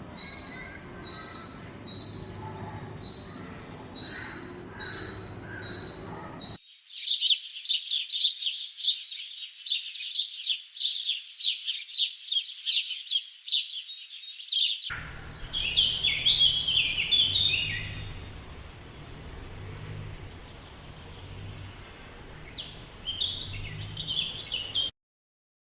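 Small birds chirping in three spliced segments. First comes a single high call repeated about once a second, then a dense twittering of many birds, and then quicker, varied chirps over a low hum.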